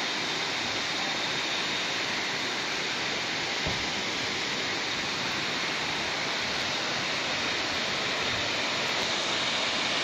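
Steady rushing of a waterfall cascading over rock, an even, unbroken wash of noise.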